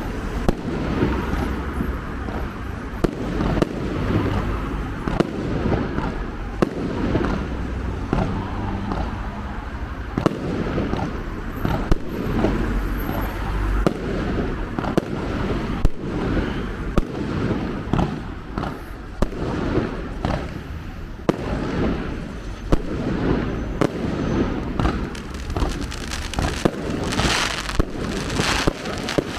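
Fireworks going off repeatedly, sharp bangs and pops scattered throughout, with a dense crackling volley near the end, over steady background noise.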